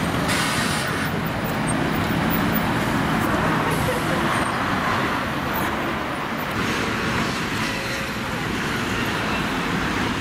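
Steady city road traffic: a double-decker bus and cars driving past, a continuous hum of engines and tyres.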